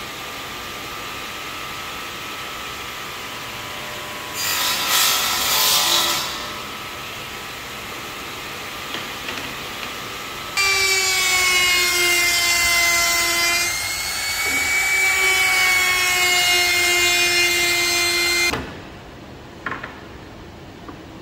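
Radial arm saw running and cutting balau hardwood strips for bed slats: a short cut about four seconds in, then a longer cut with a ringing whine from about ten seconds in. The saw sound stops about eighteen seconds in, and a couple of small clicks follow near the end.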